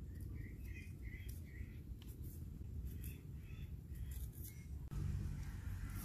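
A cleaver blade scraping the skin off a ginger root in short strokes, with a bird calling in short repeated notes in the background. A low steady hum comes in near the end.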